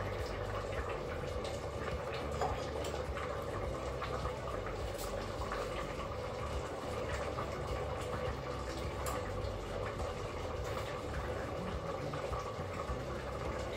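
Ramen noodles boiling in broth in a Crockpot Express multicooker's inner pot on its simmer setting: a steady bubbling hiss, with a few faint clicks.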